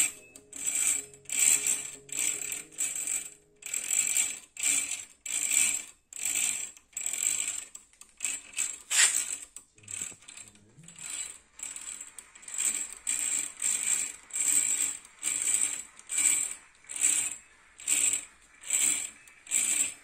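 The right-angle gearing of a brass model azimuth thruster whirring and clicking as its input shaft is twisted by hand, spinning the propeller in short repeated strokes, roughly one to two a second. One sharp metallic click about nine seconds in is the loudest.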